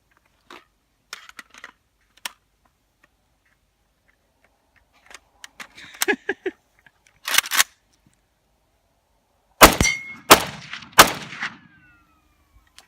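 A Century Arms AK-47 rifle in 7.62×39 mm fires three loud shots about 0.7 s apart near the end. Before them come scattered clicks and clacks of the rifle being handled and loaded. A thin metallic ringing trails off after the last shot.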